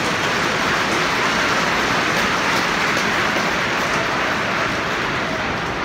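Football stadium crowd making a loud, steady roar of many voices blended together.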